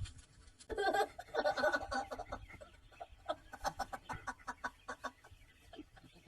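Poultry clucking: a cluster of calls about a second in, then a run of short, quick clucks.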